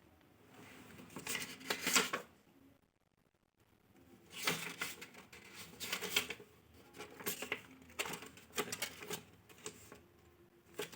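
Handling of a small cardboard product box: rustling, tapping and scraping in several short bursts, with a pause of about two seconds near the start.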